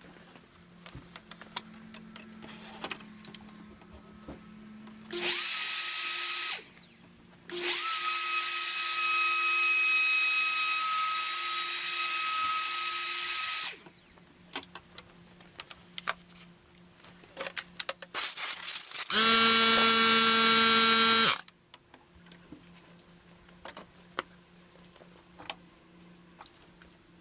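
Handheld wood router switched on in two runs, the second spinning up and running about six seconds, as it cuts a lock or hinge mortise with a template jig. About twenty seconds in, a different power tool with a lower, steady pitched whine runs for about two seconds. Small clicks and knocks of handling fall between.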